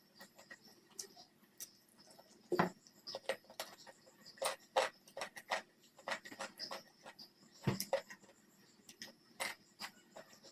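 Close-miked eating sounds: irregular wet chewing and lip-smacking clicks from someone eating a rice and curry meal, with two heavier low thuds about two and a half and seven and a half seconds in.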